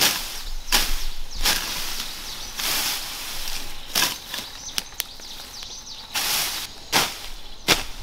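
Tall grass and weeds being slashed with a hand-held blade: repeated sharp swishing cuts, roughly one a second but irregular, with faint bird chirps in the background.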